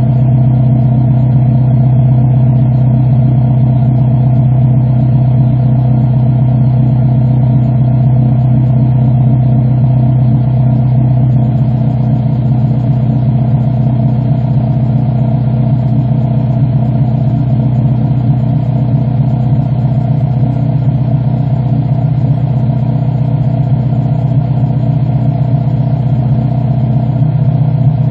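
2006 Honda Civic Si's K20 four-cylinder engine running at a steady idle, heard loud at the tailpipe of a DNA Motoring full-race catback exhaust. The tone shifts slightly about eleven seconds in, with no revving.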